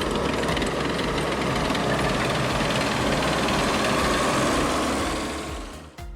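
Tractor engine running steadily with a low throbbing beat, fading out near the end.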